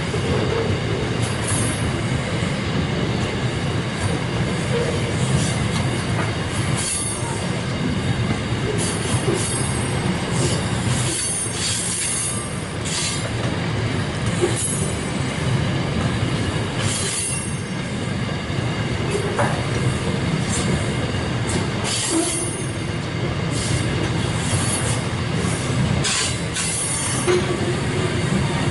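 Container wagons of a mineral sands freight train rolling past: a steady rumble of steel wheels on rail, with brief high-pitched wheel squeals every few seconds.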